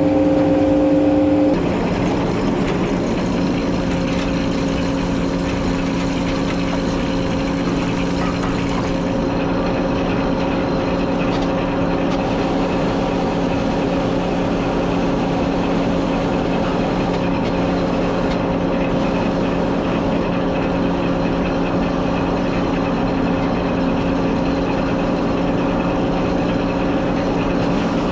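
An engine running steadily, a constant hum that shifts slightly lower and quieter about a second and a half in, then holds even.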